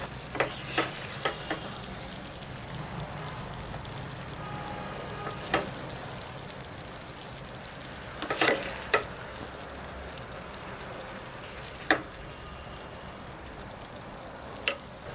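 A ladle scooping thick curry out of a non-stick pan: a dozen or so short scrapes and knocks against the pan, bunched at the start and scattered through the rest, over a steady low hiss.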